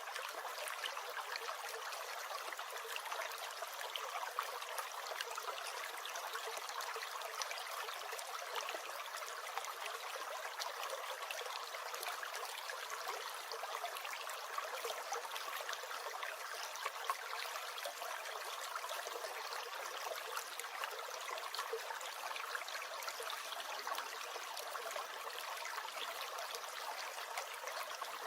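A small stream gurgling and trickling steadily, an unbroken babble of running water with no bass.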